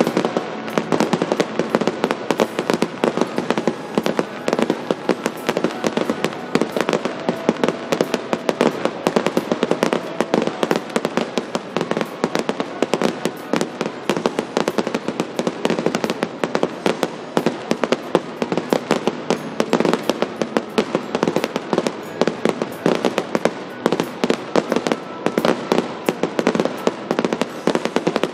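Fireworks display going off in a dense, unbroken barrage, many bangs a second.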